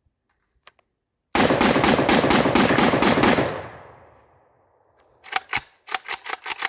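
Micro Draco AK-pattern pistol (7.62×39 mm) fired in a fast rapid-fire string of about ten shots over two seconds, emptying the last rounds, the reports ringing out afterwards. Near the end come a cluster of sharper, quieter clicks and knocks.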